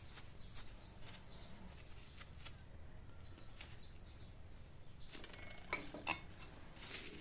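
Faint small metallic clicks and clinks as short copper rivet blanks are fitted into the holes of a steel rivet-heading block resting on an anvil. Two brighter, ringing clinks come just before six seconds in.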